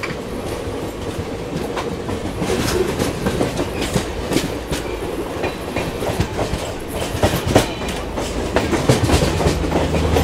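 Moving passenger trains on adjacent tracks: a steady rush of running noise with the irregular clickety-clack of wheels over rail joints, heard from an open coach door. A low steady hum swells near the end.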